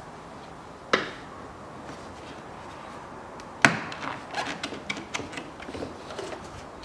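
Knocks and clicks of hands working hoses and clamps off a plastic coolant expansion tank in a car's engine bay: a sharp knock about a second in, a louder one at about three and a half seconds, then a run of small clicks and rattles.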